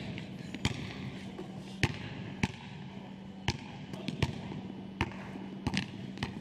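Basketball bouncing on a hardwood gym floor: a series of sharp, irregularly spaced bounces, roughly one every second, over a steady low hum.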